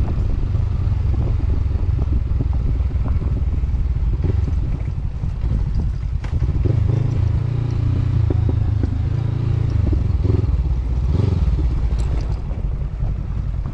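Honda CB500X's parallel-twin engine running while the motorcycle is ridden, its pitch rising and falling with the throttle, with small knocks and rattles throughout.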